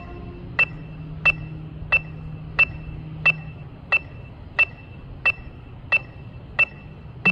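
Electronic metronome clicking steadily at about 90 beats a minute, a sharp high-pitched click roughly every two-thirds of a second, keeping time for a marching band.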